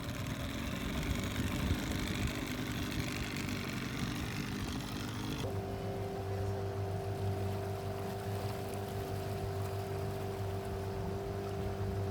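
Motorboat engine running, with water and wind noise. About five and a half seconds in, the sound changes abruptly to a steadier engine hum.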